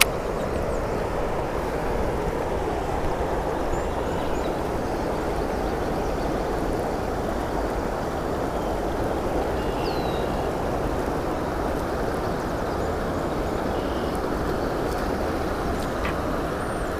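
Water running steadily over a low dam weir, a continuous rushing noise with a low rumble underneath.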